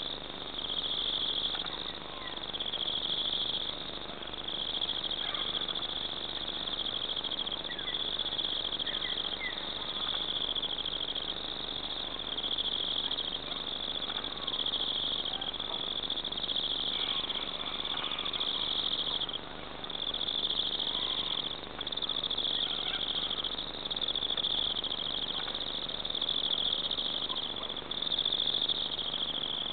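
Twilight insect chorus: a dense, high trilling that swells and falls back in phrases of a second or two, with faint short chirps scattered beneath it.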